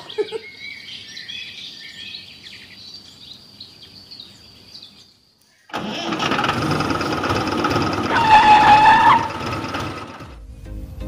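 Birds chirping for the first few seconds; then, after a brief pause, an engine starting and running loudly, with a steady tone lasting about a second over it. Music comes in near the end.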